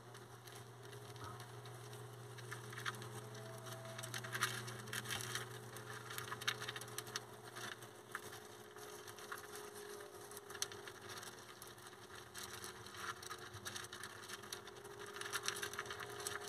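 Dwarf hamsters crunching food and shuffling in wood shavings around a metal bowl: a stream of small irregular clicks and crackles, busier at times. A steady low hum runs underneath.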